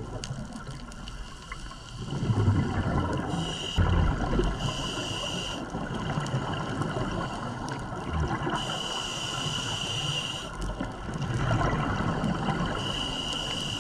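Scuba diver breathing through a regulator underwater: hissing inhalations alternate with low bubbling exhalations, with two strong bursts of exhaled bubbles.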